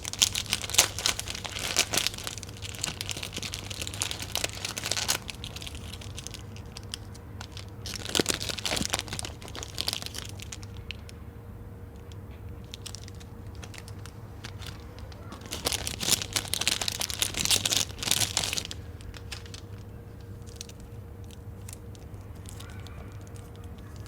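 Plastic snack packaging crinkling and crackling as it is handled, in three bouts, over a low steady hum.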